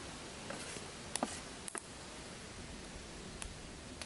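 A few light clicks and scrapes of a wooden spatula against a steel frying pan, with a pair of clicks about a second in, another pair near the middle and one more near the end, over a faint steady hiss.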